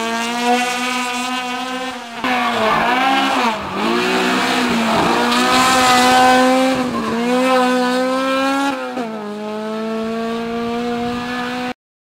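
Honda Civic Type-R race car's four-cylinder engine revving hard at full throttle, its pitch climbing and falling several times; the sound cuts off abruptly near the end.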